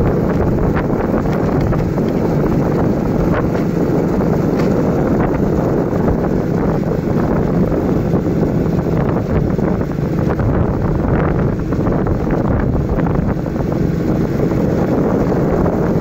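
Steady wind buffeting the microphone: a loud, dense low rumble with a few faint clicks.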